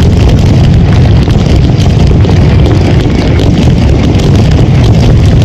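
Mascletà firecrackers going off at ground level in a dense, continuous barrage of overlapping bangs with no gaps between them. The sound is very loud and close up.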